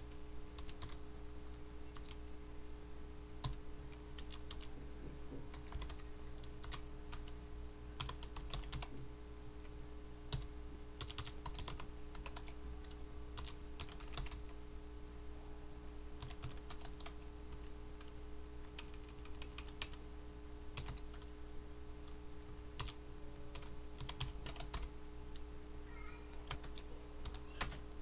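Typing on a computer keyboard: irregular runs of keystroke clicks with short pauses, over a steady low electrical hum.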